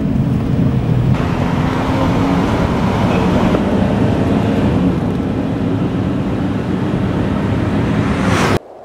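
Car engine and road noise heard from inside the cabin while driving, steady, cutting off suddenly near the end.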